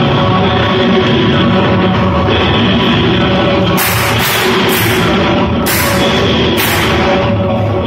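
Loud dance music with a drum beat. Several short, bright crash-like bursts of noise come through in the second half.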